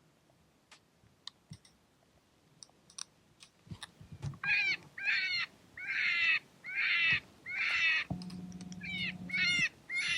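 Harsh, crow-like cawing: a run of about a dozen loud caws, each about half a second long, starting about four seconds in after a few faint clicks.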